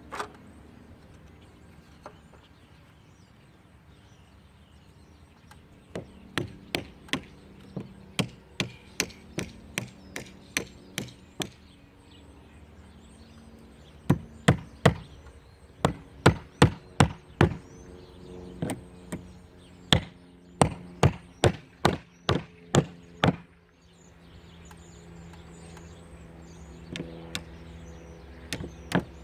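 Hammer blows on wood, in steady runs of about two strikes a second with pauses between runs, likely driving a shim or nails into a wooden trim board on a shed's siding.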